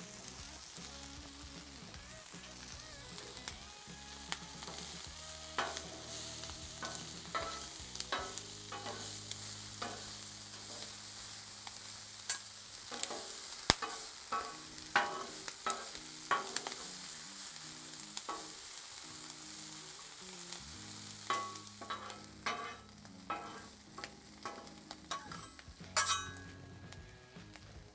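Diced red bell pepper, onion and cubed ham sizzling on a hot flat-top griddle, with a metal spatula clicking and scraping on the steel as the food is stirred. The steady sizzle carries on under frequent sharp taps that start a few seconds in.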